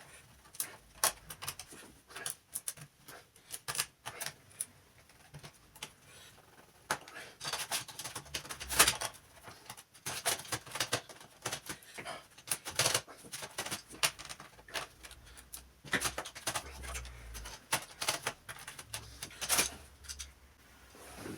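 Irregular clicking and tapping of small hard plastic and metal parts being handled, some in quick clusters and a few louder knocks, as a laptop is taken apart.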